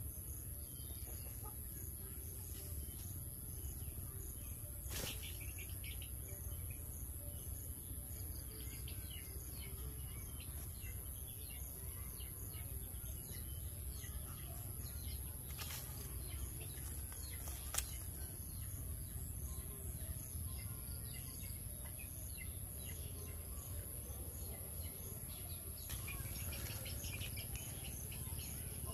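Outdoor ambience: faint, evenly repeating insect chirring and bird chirps over a steady low rumble, with a few sharp clicks. The chirping grows busier near the end.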